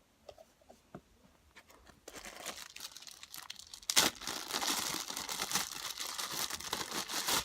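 Homemade slime being stretched and pulled apart in the hands, giving a dense crackling, tearing noise that starts about two seconds in with one sharper crack about four seconds in. The slime is on the hard side, made by adding glue.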